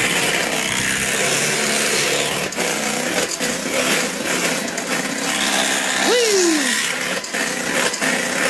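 Handheld electric mixer running steadily, its beaters whirring through thick cheesecake batter in a stainless steel bowl.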